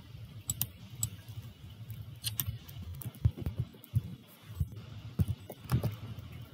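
Sporadic keystrokes on a computer keyboard, separate sharp clicks at an uneven pace over a steady low hum.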